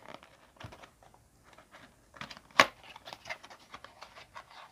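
Cardboard ammunition box being opened by hand: scattered scrapes, crinkles and small clicks, with one sharp snap about two and a half seconds in as the end flap comes free.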